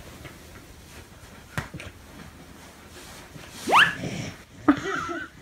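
Low shuffling, then a quick, sharply rising squeal about three and a half seconds in, followed by a short burst of pitched voice-like sounds near the end.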